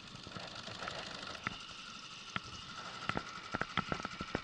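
Small conventional fishing reel being cranked against a hooked fish, with a faint steady whine and irregular sharp clicks that come thicker in the last second and a half.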